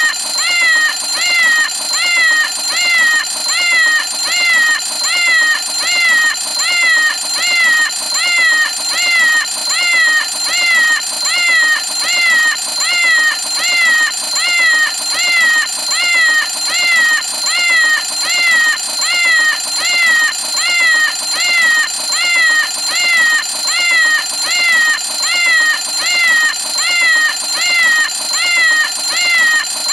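Cartoon Meow o' Clock alarm clock going off: a cat's meow repeated about once a second, each meow rising then falling in pitch, over a steady high tone.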